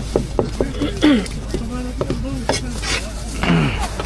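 Irregular knocks of a knife cutting braised food on a cutting board, with people talking unclearly in the background over a steady low hum.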